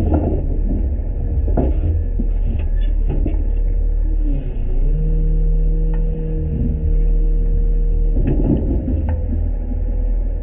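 Front-load garbage truck running, a heavy low rumble with several clunks and rattles. A steady whine joins from about five to eight seconds in.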